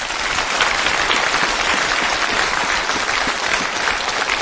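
A large audience applauding, the clapping swelling about half a second in and then holding steady.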